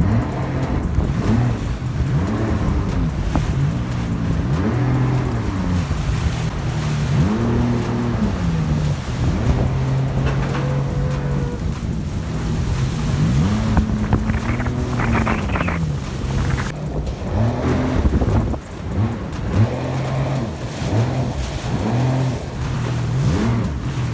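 Jet ski engine running at speed, its pitch repeatedly swooping up and falling back, with wind buffeting the microphone and water rushing past the hull.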